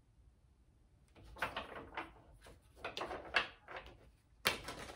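A deck of tarot cards being shuffled by hand: a run of papery rustling strokes starting about a second in, with a sharper slap of the cards near the end.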